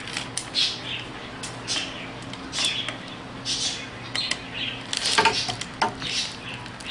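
Rubber air hose squeaking and rasping in short bursts as it is twisted and pushed onto the fitting of a BMW X5 air suspension compressor by hand, with a few sharp clicks about five seconds in. A steady low hum runs underneath.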